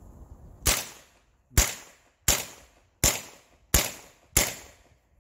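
Evanix semi-automatic air pistol firing six shots in quick succession, a sharp crack roughly every two-thirds of a second, each trailing off briefly.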